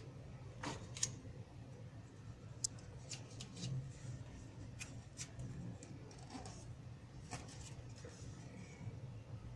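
Glossy magazine pages being handled and turned: faint paper rustles and scattered sharp ticks over a low, steady hum.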